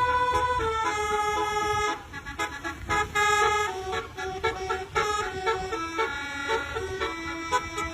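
Basuri musical vehicle horn playing a tune: a run of stepped horn notes, some held and some short, loudest in the first two seconds and again about three seconds in.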